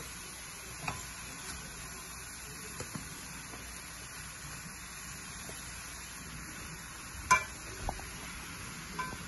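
Food sizzling in a frying pan as cooked rice is spooned onto the sautéed chicken, shrimp and vegetables for fried rice (chaufa). Now and then a spoon or spatula clicks against the bowl or pan, with one sharp knock about seven seconds in.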